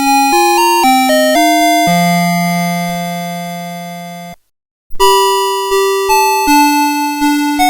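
CITIZEN Melody Box 30 series alarm clock playing its electronic alarm melodies. One tune ends on a long held note that fades out, there is half a second of silence, and the next tune starts with quick notes about five seconds in.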